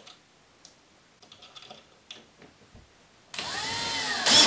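Cordless drill driving a short wood screw up through a metal L bracket into a soft pine shade board. After a few seconds of faint handling clicks, the drill starts suddenly about three seconds in and runs for about a second, its pitch rising and then falling as the screw drives home.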